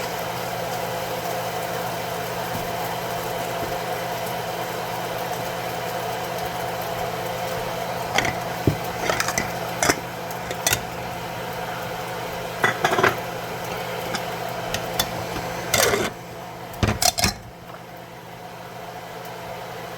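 A spatula knocking and scraping against a skillet in scattered clusters of sharp clicks from about eight seconds in, over a steady mechanical hum that drops away near the end.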